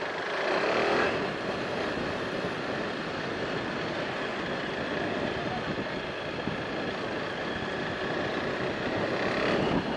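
Steady rush of wind and road noise from a moving KTM RC 390 motorcycle, picked up by a camera mounted on the bike, with the engine running underneath.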